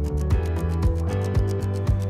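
Background music with a steady beat and a bass line.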